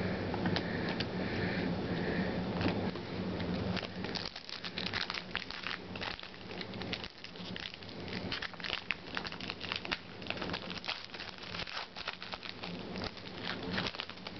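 Trading cards being flipped through and handled by hand: a dense run of quick, dry clicks and crinkling rustles from about four seconds in.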